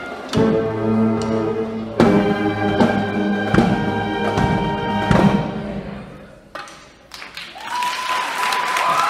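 A school band of brass and drums, with sousaphones and trumpets, hits a few last accented chords that ring and die away. Applause starts near the end.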